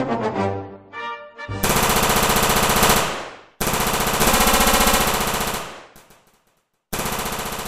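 Machine-gun fire sound effect: three long bursts of rapid automatic shots, each ringing out as it ends. Before the first burst, about a second and a half in, the tail of a brass music theme dies away.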